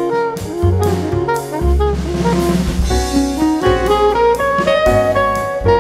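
Background music: an instrumental tune with a melody over drums and bass.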